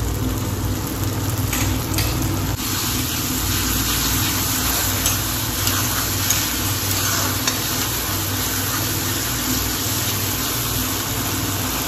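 A spatula stirring and scraping a thick mixture sizzling in a black iron kadai: a steady frying sizzle with a few short scrapes of the spatula on the pan, over a steady low hum.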